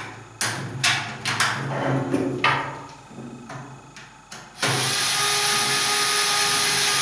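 Aluminium antenna parts clicking and knocking as they are handled. About four and a half seconds in, a small cordless screwdriver starts and runs steadily, tightening a bolt that fixes the antenna's frame.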